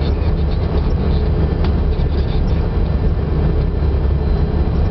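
Steady low rumble of airflow and engines heard inside an airliner cockpit on final approach to landing.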